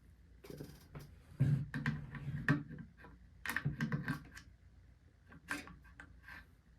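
Metal AR-15 parts clicking and knocking together in short clusters as they are handled and fitted back together during reassembly.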